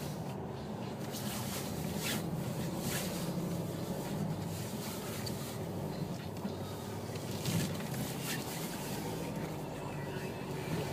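A car driving through deep snow, its engine and tyre noise heard from inside the cabin as a steady low hum, with a few short knocks.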